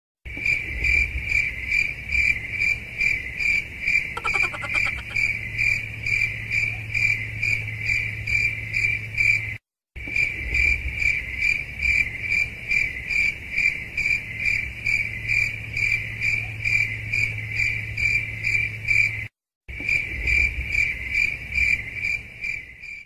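Cricket chirping sound effect: a steady high chirp pulsing about three times a second, looped, with two brief dropouts where the loop restarts.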